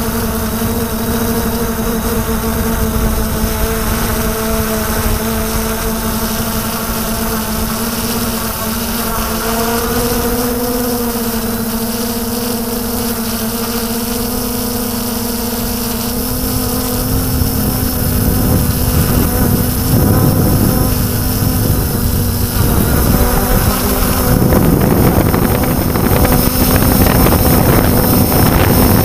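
Camera drone's electric motors and propellers humming steadily while it hovers, heard from the drone's own on-board camera. Rough wind buffeting on the microphone grows louder from about two-thirds of the way through.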